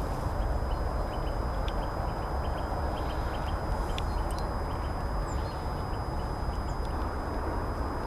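Steady outdoor background noise: a constant low rumble with faint scattered ticks over it.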